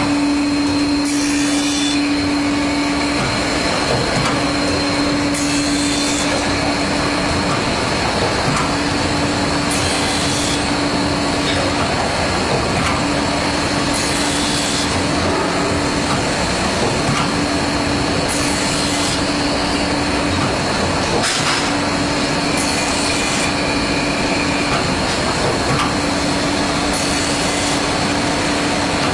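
SHCNC-110B CNC circular saw blade sharpening machine running: steady motor noise with a low hum that cuts in and out about every second or two. A short hiss of the grinding wheel on the blade comes every few seconds.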